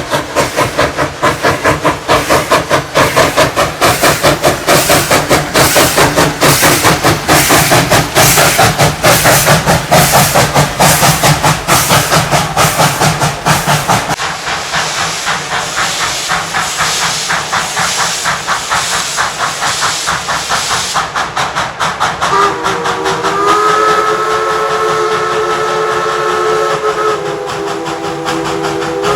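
Baldwin 2-8-2 narrow-gauge steam locomotive working, with rapid, even exhaust chuffs and steam hiss. Near the end its steam whistle blows a long chord of several notes, then sounds again.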